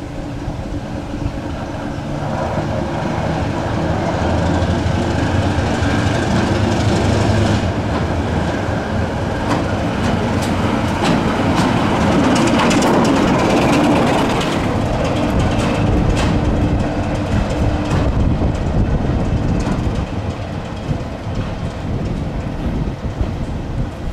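Heritage diesel locomotive running past at low speed, its engine growing louder as it draws near and passes. Its wheels click over the rail joints in the middle of the pass.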